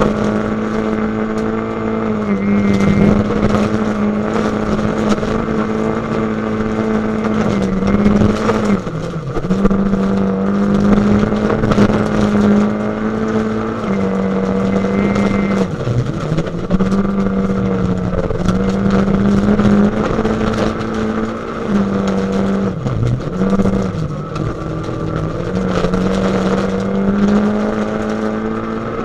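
Rally car engine running hard at high revs, heard from inside the cabin, its pitch held fairly steady and dipping briefly three times. Gravel clatters and ticks against the car throughout.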